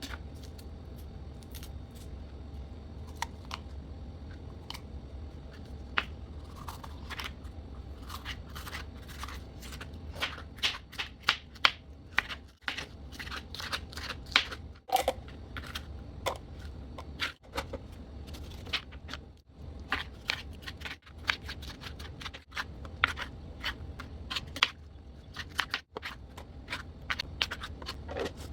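Knife slicing bell peppers on a cutting board: irregular crisp cuts and taps, sparse at first and coming thicker from about ten seconds in, over a low steady hum.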